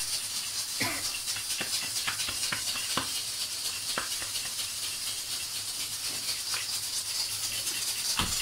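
Soft, irregular pats of a rolled chapati being slapped and turned between the hands, over a steady hiss, with one louder knock near the end.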